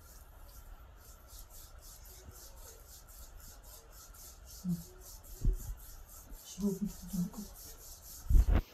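Hands massaging an oiled calf: faint rubbing and shuffling, with a few short low tones around the middle, a dull thump, and a louder dull thump near the end.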